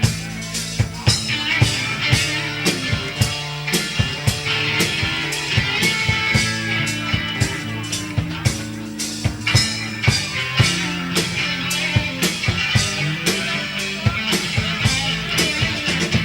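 Live rock band playing an instrumental passage: drum kit keeping a steady beat with electric guitar and bass.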